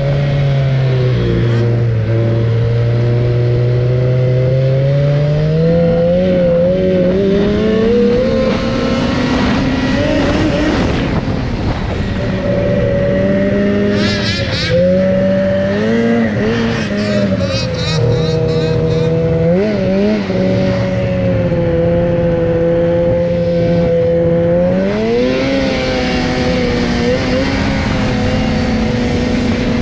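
Snowmobile engine running under throttle. Its pitch climbs over the first several seconds, dips and recovers a few times in the middle, and rises again near the end as the rider speeds up and eases off.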